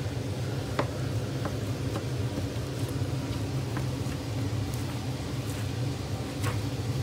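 Steady low machine hum, with a few faint clicks as a butcher knife slices through a beef top round on a plastic cutting board.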